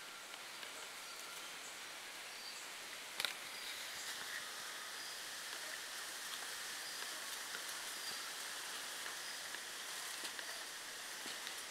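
Outdoor daytime ambience: a steady hiss with faint, scattered short chirps, and one sharp click about three seconds in.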